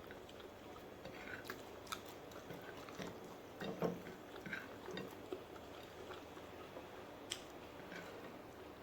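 A person chewing and biting food close to the microphone: irregular small clicks and wet mouth sounds, with the loudest bite about four seconds in.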